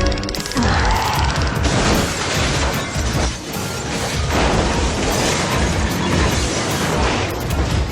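Action film soundtrack: dense crashing and clattering sound effects over music, with a run of fast, even clicks in the first second or so.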